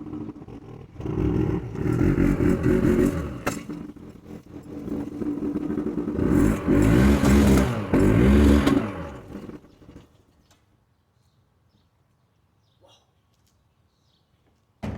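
A car engine running and revving, its pitch rising and falling several times, then cutting off about ten seconds in.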